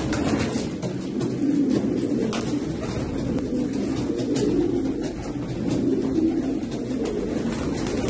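A large flock of domestic fancy pigeons cooing together in a loft, many low coos overlapping into a continuous murmur, with a few short clicks in the first half.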